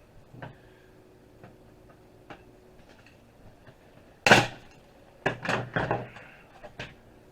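Plastic case of a Zip drive being pried open by hand: a few light clicks, then a loud crack about four seconds in and a run of snaps as the case comes apart.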